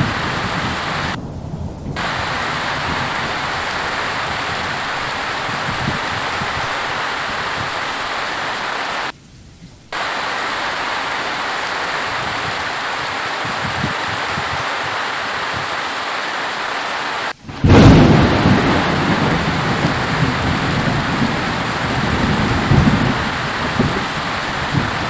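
Steady heavy rain, cut by a couple of brief drop-outs, with a loud low rumble of thunder rolling in about two-thirds of the way through and continuing to the end.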